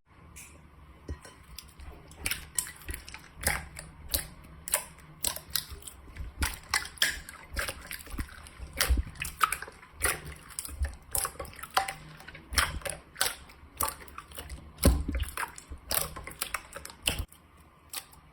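Slime being squeezed and worked, giving a quick, irregular run of sharp wet pops and clicks.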